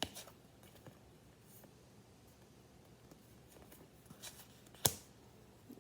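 Quiet room with the light handling of tarot cards on a table: a few soft taps near the start, then a single sharp click a little before five seconds in.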